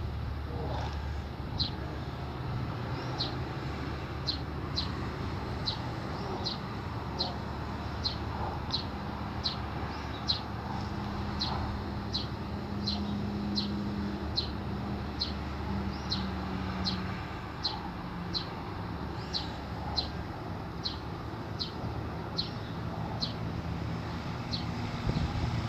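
Steady low outdoor rumble, like distant traffic, with a short high chirp repeating a little more than once a second.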